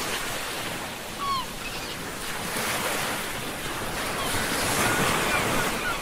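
Ocean surf washing in and out, swelling and easing, with short high chirps now and then.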